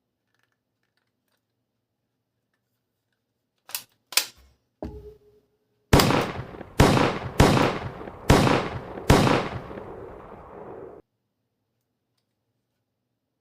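A few sharp clicks, then five loud gunshot sounds about a second apart, each with a ringing tail, cutting off suddenly after the last: recorded gunshot sound effects, as played by a toy gun.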